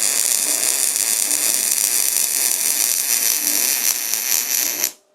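MIG welder running a bead on the steel frame: a steady hiss that stops abruptly near the end as the trigger is released.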